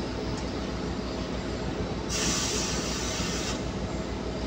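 Compressed-air blow gun hissing in one blast of about a second and a half, starting about two seconds in, aimed into the engine block's ports. A steady low hum of machinery runs underneath.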